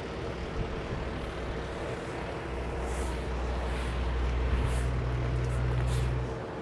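Awning fabric and its bead being fed along the awning rail, giving a few short swishing scrapes, over a steady low hum that grows louder partway through and cuts off just before the end.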